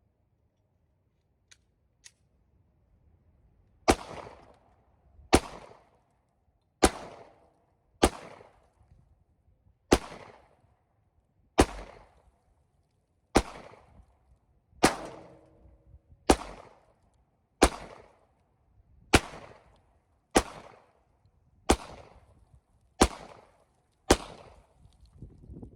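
Steady string of fifteen gunshots from a firearm firing .40 caliber target ammunition, evenly paced about one every one and a half seconds, each a sharp crack with a short echoing tail. Two faint clicks come just before the first shot.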